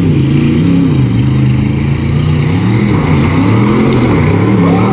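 Modified tuff truck's engine revving hard as it drives the course, the pitch climbing and dropping several times as the throttle is worked.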